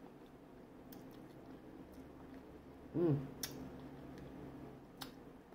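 Close-up eating sounds of crab meat being chewed: faint wet chewing with scattered small clicks, a couple of sharper clicks, and a short hummed 'mm' about three seconds in.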